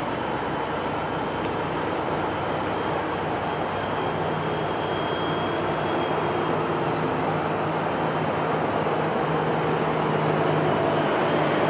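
Siemens Charger diesel locomotives of a Pacific Surfliner idling at a standstill: a steady engine drone whose low hum grows a little stronger over the second half.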